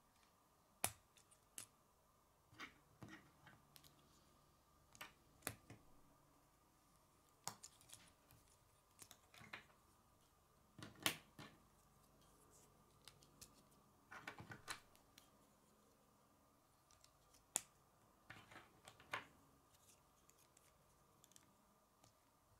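K'nex plastic rods and connectors being snapped together by hand: an irregular string of sharp clicks and snaps. The loudest snaps come about a second in and near the middle.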